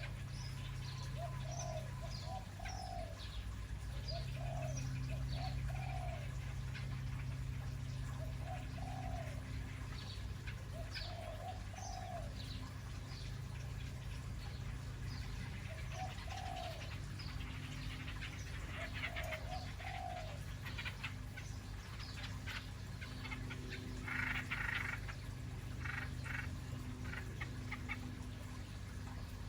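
Birds calling: short arched notes in twos and threes, repeated every second or two, with thin high chirps over a steady low hum. A brief rustling burst comes about 24 seconds in.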